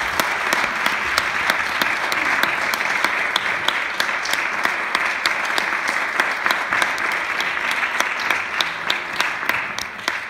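Audience applauding, a dense clatter of clapping with some single sharp claps standing out, dying away near the end.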